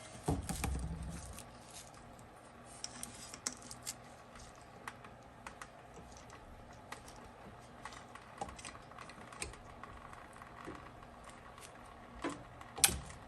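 Scattered light metallic clicks and taps of hand tools and bolts as Allen-head bolts are worked out of a supercharger's front plate, with a dull knock about half a second in and a sharp click near the end.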